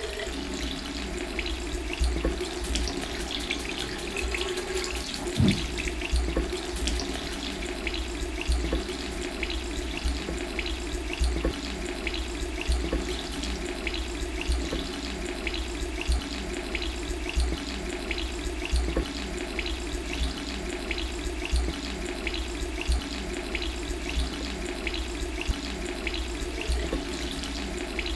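Water running steadily from a bathroom tap into a ceramic sink, starting abruptly, with irregular splashing as hands scoop water over the ears and a foot held in the basin.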